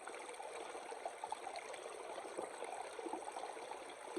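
Small spring water trickling off rocks into a Sawyer squeeze-filter bag as it is filled, a soft steady trickle with small irregular splashes.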